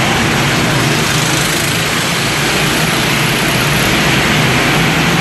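Several racing go-kart engines running together as the pack laps the track, a loud, steady drone inside a concrete hall.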